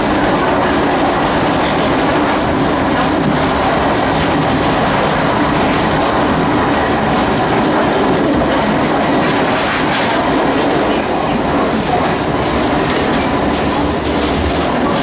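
Metropolitan line A Stock electric train running at speed, heard from inside the car: a steady rumble of wheels on track, with faint clicks from the rails scattered through it.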